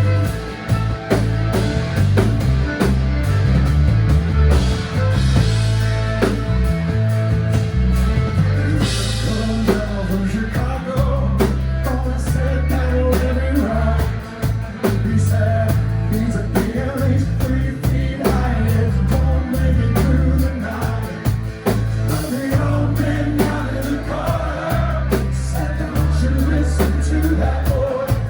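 Live rock band playing loud, a long stretch without sung lyrics: electric guitar over heavy bass and drum kit, with several cymbal crashes.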